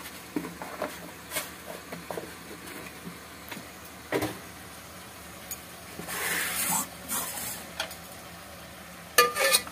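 Chicken frying in an aluminium pot, with scattered light knocks of utensils and a brief hiss about six seconds in. Near the end a ladle starts stirring, clattering loudly against the pot.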